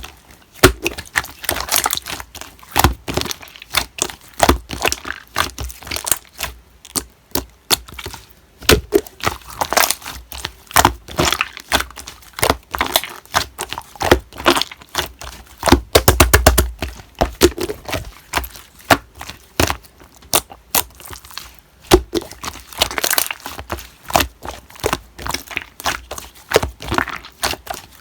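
Slime being pressed and stretched by hand, giving a constant irregular run of sharp crackling clicks and pops, with a quick flurry of clicks and a soft thump about halfway through.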